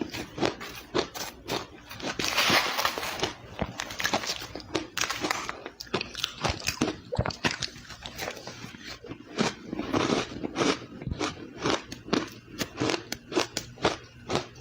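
Ice being bitten and chewed close to the microphone: a steady run of sharp crunches and crackles. The crunching is denser and louder about two seconds in.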